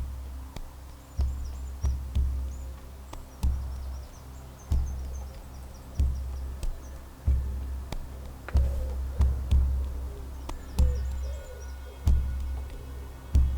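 Music with slow, deep drum beats, roughly one a second, and birds chirping; a sustained pitched tone joins in near the end.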